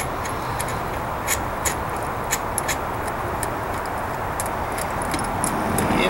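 Irregular small metallic clicks and clinks, about two a second, of a spark plug socket and extension turned by hand to back out a spark plug that is only finger tight. Steady background noise runs underneath.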